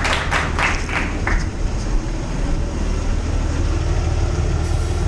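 Steady low rumble of a car driving, its engine and road noise heard from inside the cabin. A few short noisy strokes sound in the first second and a half.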